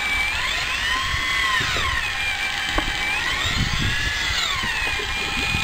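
Electric fishing reel's motor winding in line on a hooked swordfish. It gives a whine that rises in pitch, holds, then falls back, twice over.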